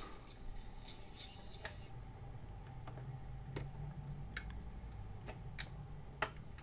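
Automatic record changer running its stop cycle: faint groove noise cuts off about two seconds in as the stylus lifts off the record, then the mechanism hums low while the tonearm swings back to its rest, with scattered light clicks from the gears and arm.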